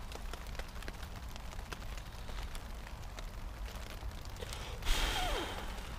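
Faint crackling of a log fire, then about five seconds in a sudden loud hissing sizzle with a falling whistle-like tone, fading over about a second, as the hot cast-iron Dutch oven of stew sits on the snow.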